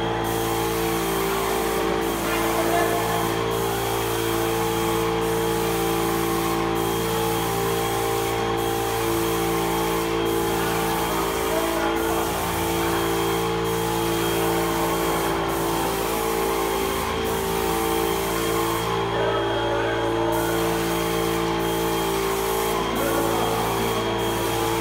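Airless paint sprayer spraying acrylic paint from the Wagner ProSpray 24: a steady hiss from the spray gun, briefly breaking off every second and a half or two and for about a second about three quarters through, over a steady hum.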